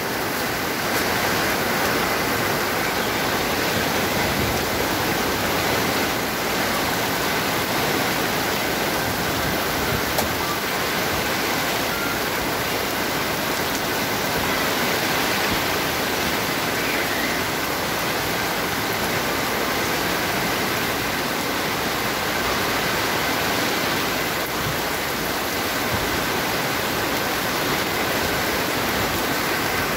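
Heavy rain pouring down onto a water-covered street, a steady rushing hiss that does not let up.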